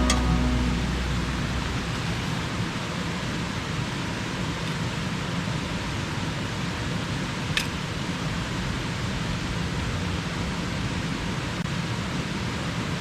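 Steady rushing noise with no pitch or rhythm, with one short sharp tick about seven and a half seconds in.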